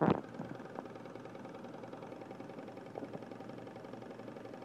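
Small candle-heated model Stirling engine running steadily, its flywheel turning with a light, even mechanical whirr. A sharp bump near the start.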